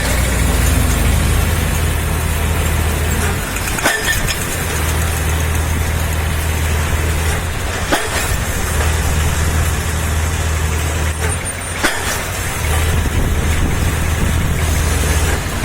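A heavy engine running steadily with a low rumble, broken by a short click and a brief dip about every four seconds.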